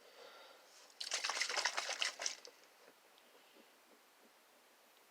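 Pet Tornado toy being shaken: water sloshing inside its sealed plastic tube, a quick patter of sloshes and rattles for about a second and a half, starting about a second in.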